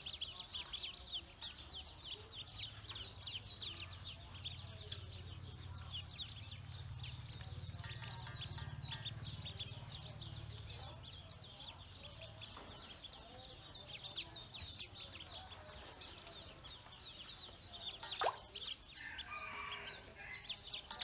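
A group of Pekin ducklings peeping continuously, many rapid high chirps overlapping. One louder call slides downward near the end.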